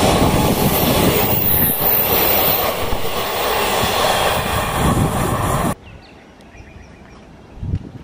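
Express train's passenger coaches passing at speed close by: a loud steady rumble and rush of wheels on the rails. It cuts off suddenly about three quarters of the way through, leaving a faint background with a low thump near the end.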